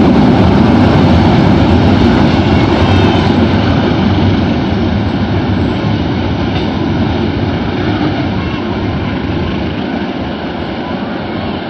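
A train running past on the rails, a loud steady rumble of wheels and running gear that slowly fades as it moves away.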